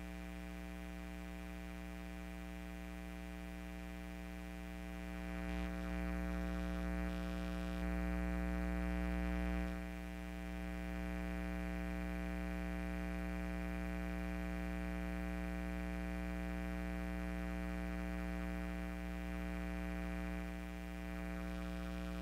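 Steady electrical mains hum and buzz: a low hum with a stack of higher overtones that never changes pitch. A rush of background noise swells up between about five and ten seconds in.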